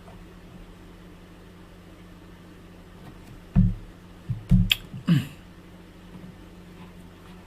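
A steady low electrical hum, with a quick cluster of about four loud thumps and clicks a little after halfway through.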